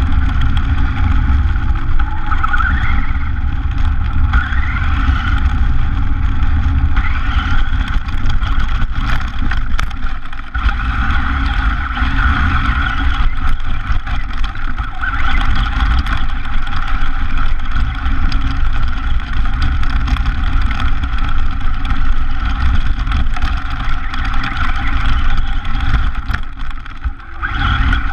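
Radio-controlled buggy driving, heard from a camera mounted on the car: the motor whine rises in pitch each time it speeds up, over a heavy, steady rumble from the chassis and tyres as it runs from pavement onto grass.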